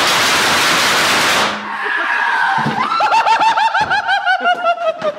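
Firecrackers on a potato going off in a dense, loud crackle that stops abruptly about a second and a half in. Then a man laughs in rapid, high-pitched bursts, about six a second.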